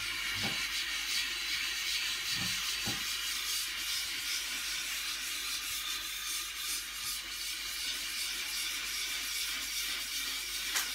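Homemade abrasive block of valve-lapping powder and epoxy rubbed back and forth by hand on wet silicon carbide grit on a glass plate, a steady gritty scraping hiss as the block's face is lapped flat.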